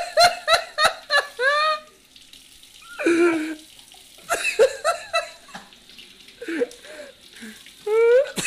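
Laughing in short giggling bursts, several times, over a kitchen tap running into the sink.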